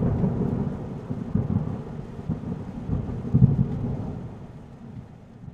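Low rumble with irregular swells, fading away toward the end.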